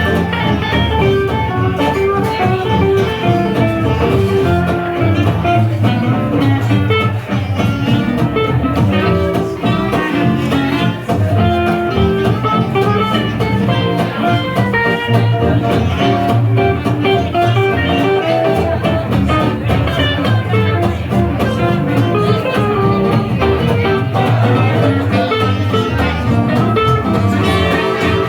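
Live swing-jazz band playing a tune, with plucked guitar to the fore.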